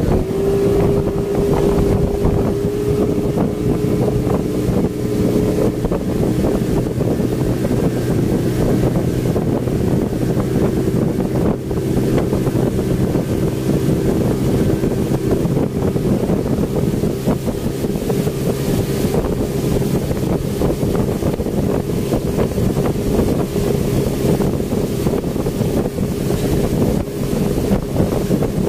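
Speedboat engine running steadily at cruising speed, holding one even pitch, with wind buffeting the microphone.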